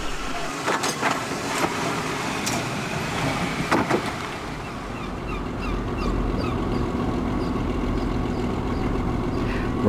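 An electric tram car of the Manx Electric Railway moving off along the track, with a few sharp clicks and knocks over the first four seconds. From about six seconds in, a steadier low hum takes over, with faint high chirps.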